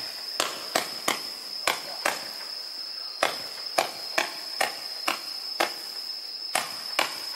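A 50-shot consumer fireworks cake firing single shots in quick succession: a sharp launch report about every half second, with two brief pauses. Each shot sends up a comet or strobe tail. A steady high-pitched insect trill, likely crickets, runs underneath.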